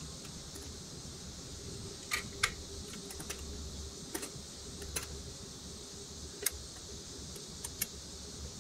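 Scattered light metal clicks and taps from a restored 1930s pressed-steel toy searchlight truck being handled: the battery box lid being shut and the searchlight being switched on. The clicks are sharp and irregular, about eight in all, the loudest two a couple of seconds in, over a steady hiss.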